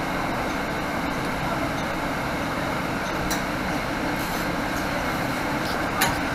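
Cabin noise inside a 2018 Nova Bus LFS diesel transit bus: the diesel engine and road noise running steadily as the bus rolls up to a stop. A short click about three seconds in and a sharper click near the end.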